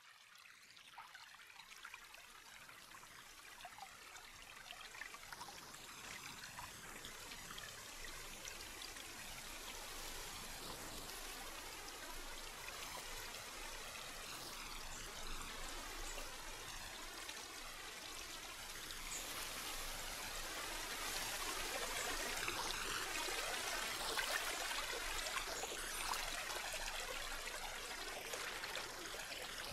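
Small stream cascading over rocks, a steady rush of water that slowly grows louder.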